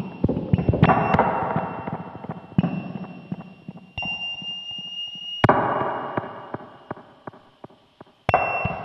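Experimental electronic sound piece: abrupt noisy hits that each die away over a second or two, coming every one to three seconds, with a steady high tone and scattered clicks between them.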